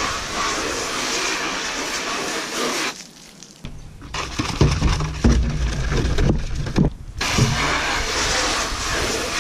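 Garden hose spraying water into a plastic fodder tray to rinse it. The spray stops about three seconds in, and the tray is scrubbed with a small brush, with scraping and knocks. The spray starts again about seven seconds in.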